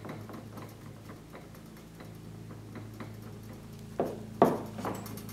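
Cotton swab scrubbing cold blue onto the revolver's steel, light even ticks about three a second over a steady low hum. About four seconds in, two loud knocks as the gun and swab are handled.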